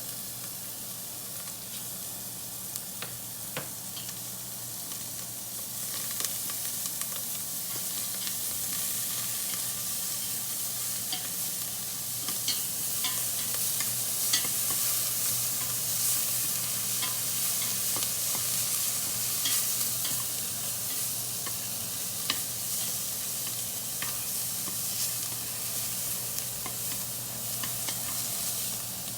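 Cilantro and green onion frying in oil in a pan, a steady sizzle that grows louder about six seconds in, with scattered clicks of the stirring utensil against the pan.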